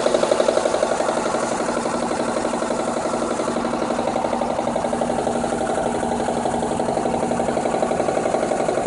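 A 2003 Mitsubishi Eclipse GS's 2.4-litre four-cylinder engine idling steadily, with a fast, even pulsing noise running through it. The owner cannot identify the noise, but it feels to him like it comes from the passenger side of the engine bay.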